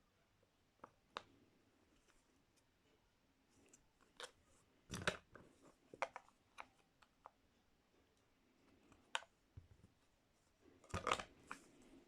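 Wooden frame-insert puzzle pieces being handled: a scattering of light taps and clacks, with small clusters about five, six and eleven seconds in.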